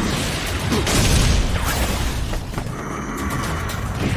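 Cartoon explosion sound effect: a deep boom and rumble with debris, loudest in the first second and a half, then a few sharper impacts, under background music.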